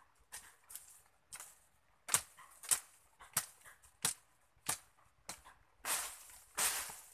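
Machete (mandau) hacking at undergrowth: sharp strokes about one and a half a second, turning into a few longer swishing strokes near the end.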